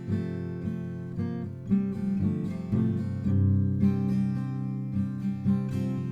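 Steel-string acoustic guitar being played, a steady run of picked notes and strummed chords.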